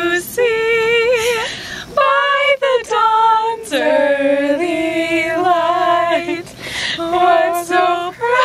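Women singing unaccompanied, a single melody of held notes with vibrato, broken into short phrases.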